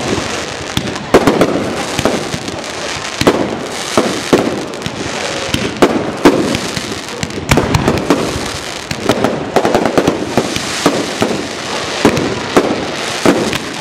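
Fireworks display: aerial shells launching and bursting in an irregular run of sharp bangs, about one or two a second.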